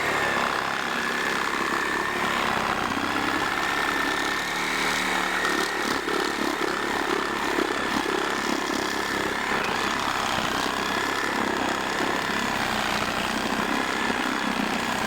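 Corded or cordless reciprocating saw with a Diablo 12-inch pruning blade running steadily as it cuts through a partly rotted tree trunk, its motor holding a high whine throughout.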